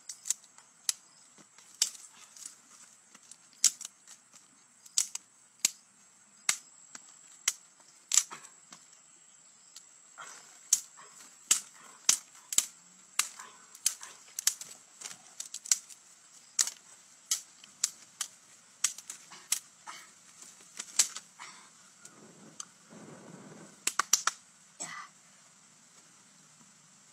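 Dry sticks and branches snapping as they are broken by hand for firewood: a series of sharp cracks at uneven intervals, about one or two a second, with a cluster of quicker ones near the end.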